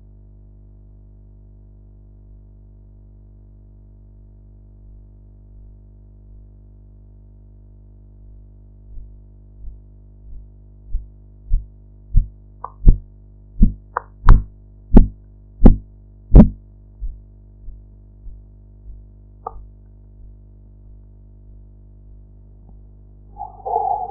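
Korotkoff sounds through a stethoscope as a blood pressure cuff deflates: faint taps appear, grow into loud thumps about three every two seconds, then fade and stop, over a steady low hum. The first clear tap marks the systolic pressure and the point where they vanish the diastolic. A different, higher sound begins just before the end.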